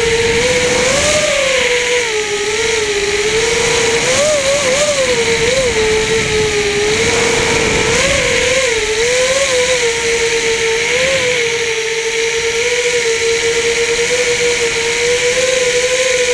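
FPV quadcopter's electric motors and propellers whining in flight. The pitch keeps rising and falling with quick throttle changes, then holds steadier near the end.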